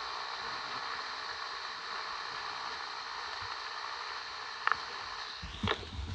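Steady hiss with a faint high whine, broken by one sharp click just before the end; in the last half-second a low rumble and a few knocks or clicks like handling noise set in.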